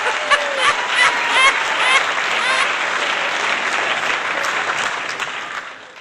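Crowd applauding and cheering, with short shouts or whoops over the clapping in the first half, fading out at the end.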